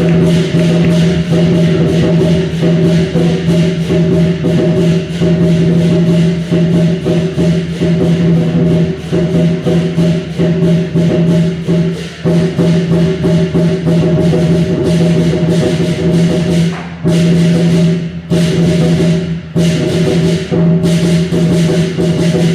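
Percussion-heavy music: rapid, dense strikes over a steady, sustained low tone, with a few brief breaks in the last few seconds.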